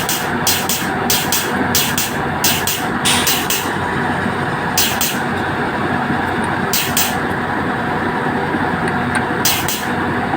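Heavy diesel engine running steadily, with short bursts of hiss that come about twice a second for the first few seconds and then three more times, spread out.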